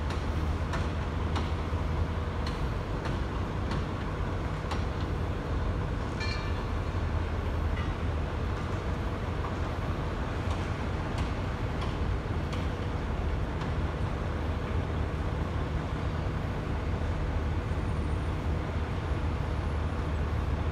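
Steady low mechanical rumble and hum with scattered faint clicks, sped up fivefold.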